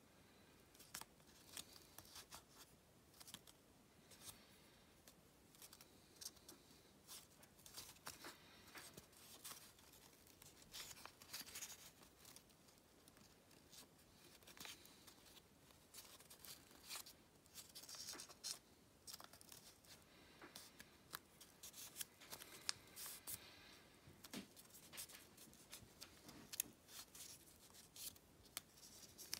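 Faint rustling of a sheet of origami paper being folded and creased by hand, with many small, irregular crisp crackles as the folds are pressed and shaped.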